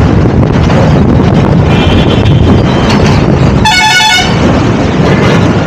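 A vehicle horn blares once, briefly, about two thirds of the way in, over the steady rumble and wind buffeting of a lorry moving at speed, with wind striking the microphone on top of the cab.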